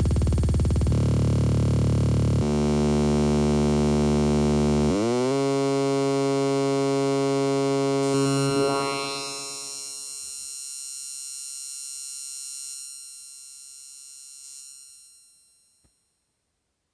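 Electronic dance track cut into a DJ beat loop that is made ever shorter, turning the music into a fast stutter and then a held, buzzing synth drone, with a short upward pitch bend about five seconds in. A filter sweep follows, and the sound steps down in level and fades out to silence near the end.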